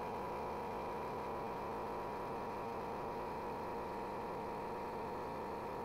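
Small 12-volt air pump running steadily under a heavy load of about 70 amps, draining a lithium battery down toward its cutoff, with a steady whine near 1 kHz over its running noise.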